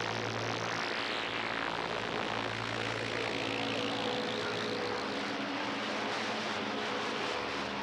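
CB radio receiver hissing with skip (DX) static on channel 28. The hiss sweeps down in pitch over the first couple of seconds, then climbs back up, a rushing, jet-like swish, with faint steady whistle tones underneath.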